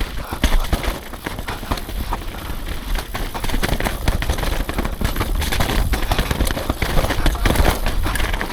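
Mountain bike riding fast down a dirt trail: steady wind buffeting on the microphone, with quick knocks and rattles as the bike runs over bumps.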